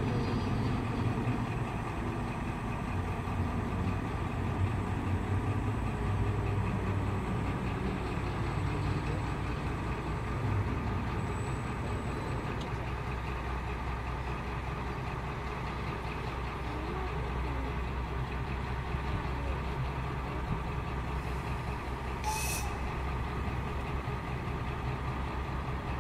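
Diesel shunting locomotive idling with a steady low hum. A short hiss of air about three-quarters of the way through.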